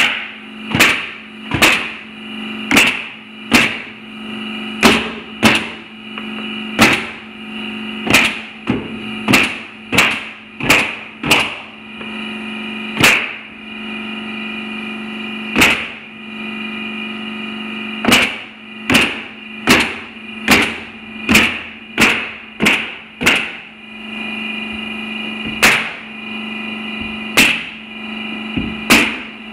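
Pneumatic nail gun firing nails through plywood floor panels into 2x4 joists: a long run of sharp shots, one to two a second, with short pauses between runs. A steady hum runs underneath.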